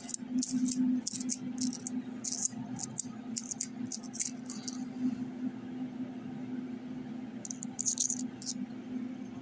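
A steady low hum, with quick light rattling clicks over the first few seconds and again briefly about eight seconds in.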